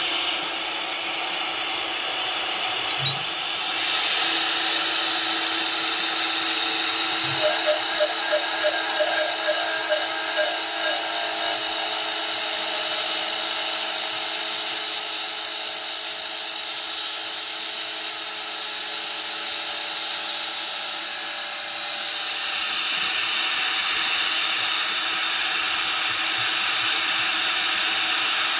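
Tormach CNC mill's spindle driving a long end mill that trims the end of a carbon fiber tube by conventional milling, mixed with shop vacuums drawing the dust away; a steady whir and hiss. About a third of the way in there is a short run of quick, regular ticks.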